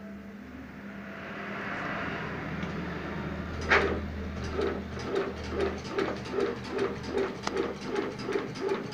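Automatic incense-stick making machine running: a steady motor hum, then a loud clack about four seconds in, after which it settles into an even mechanical clacking about three times a second.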